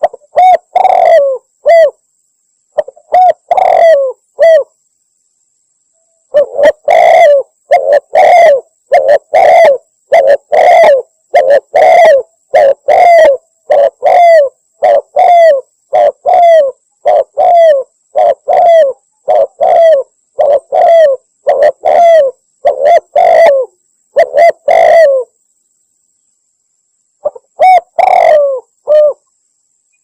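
Spotted dove (tekukur) cooing, played as a recorded lure call: phrase after phrase of low, rolling coos, loud and distorted. A few short bursts at first, then an unbroken run of coos from about six seconds in until about 25 seconds, a two-second gap, and a last short burst near the end.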